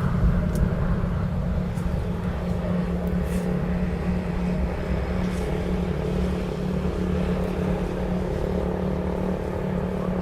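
A motor vehicle engine running steadily, its hum holding an even pitch over a low rumble.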